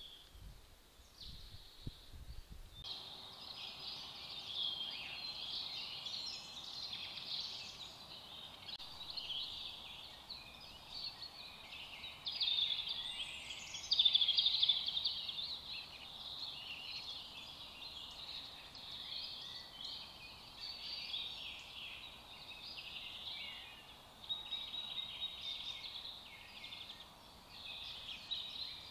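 Many woodland birds singing at once, overlapping songs and calls, with a few louder calls about halfway through. The first few seconds hold only faint low thumps before the birdsong starts.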